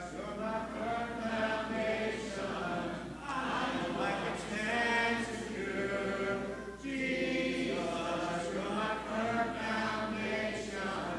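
A church congregation singing unaccompanied in many voices, in long held phrases with short breaks between them.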